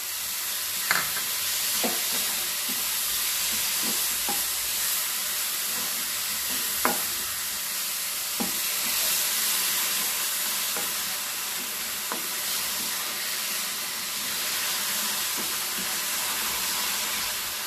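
Grated carrot and sugar sizzling in ghee in a pan while being stirred, with a spatula clicking against the pan now and then.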